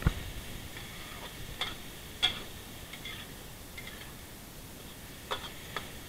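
Metal spatula knocking and scraping against an aluminium wok while stir-frying clams: a dull knock at the start, then a few sharp clinks at irregular intervals, the loudest about two seconds in, over a faint steady hiss.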